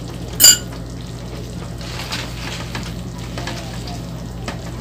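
Cream sauce sizzling in a frying pan while spaghetti is tossed and stirred through it. A single sharp, ringing clink comes about half a second in and is the loudest sound.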